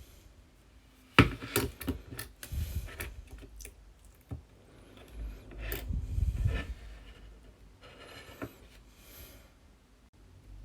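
Small clicks, taps and scrapes of repair tools and loose phone parts being handled during a smartphone screen repair, with a sharp click about a second in and short stretches of rubbing.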